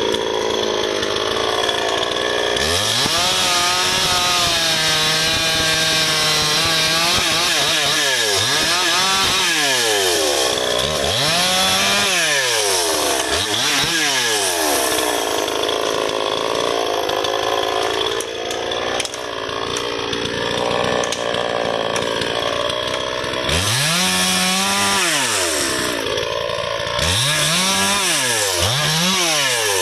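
Two-stroke chainsaw cutting sengon (albizia) logs, its engine revving up and falling back again and again in quick swells, with a steadier stretch in the middle.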